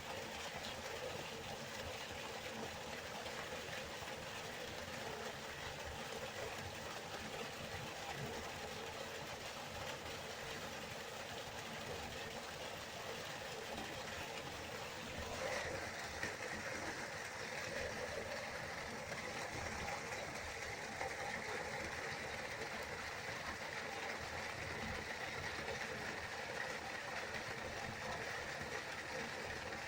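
Waterfall: water falling and rushing in a steady, unbroken roar, turning brighter and more hissing about halfway through.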